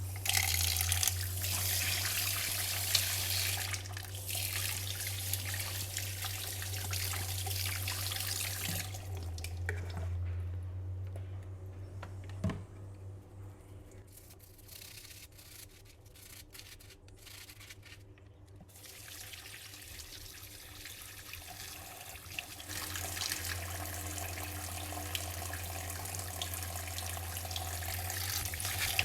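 Kitchen tap running into a sink while Nutribullet base parts are washed under it; the flow stops for about ten seconds in the middle, then runs again.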